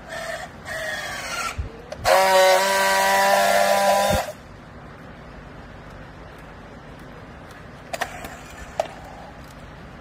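Battery-powered handheld strapping tool on a plastic bale strap: two short motor whines rising in pitch as it tensions the strap, then a loud steady buzz for about two seconds as it friction-welds the strap ends. A couple of sharp clicks follow near the end.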